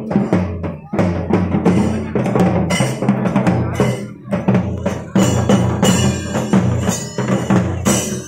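Loud, fast drumming from a percussion ensemble: a continuous stream of closely spaced strokes with no real pause.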